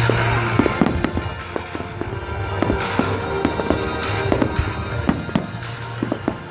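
Aerial fireworks going off: many sharp bangs and crackles in quick succession.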